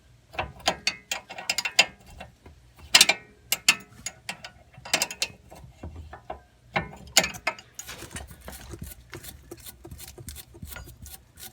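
Ratchet wrench clicking as it works the nut off a front sway bar end link bolt, with sharp metallic clicks and clinks. The clicks come in irregular groups at first, then in a quicker, steadier run from about eight seconds in.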